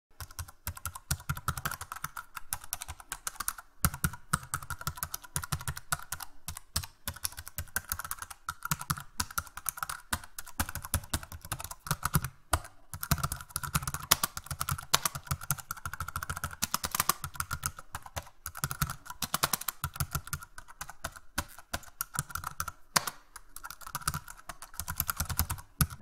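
Fast, continuous typing on a computer keyboard: a dense stream of key clicks, broken by a few short pauses.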